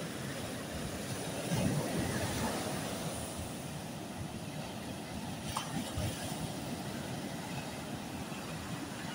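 Sea waves breaking and washing up a sandy beach: a steady rushing noise with a low rumble, swelling briefly about a second and a half in.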